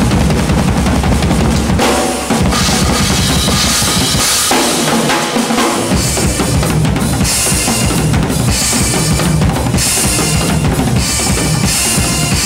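Drum-kit solo: fast, dense bass drum and snare playing. About two seconds in a bright high ringing wash takes over and the low drums drop out briefly. Full-kit playing returns around six seconds in, with high accents at a steady pulse a little faster than one a second.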